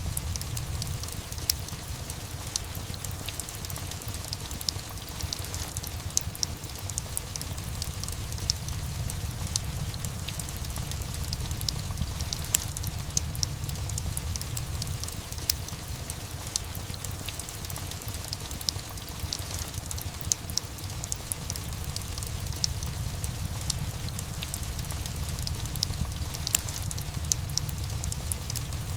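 Steady rain with a low rumble underneath, mixed with a fireplace crackling, with frequent sharp pops and snaps.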